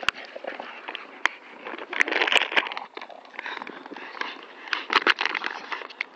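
Plastic bottle crinkling and crackling in irregular bursts as Staffordshire bull terriers and a Patterdale terrier bite and tug on it, with several sharp clicks.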